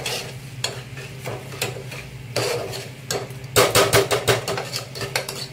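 Metal spoon stirring and scraping masala in an aluminium pressure cooker, with a quick run of sharp clinks against the pot about three and a half seconds in. A low steady hum sits beneath.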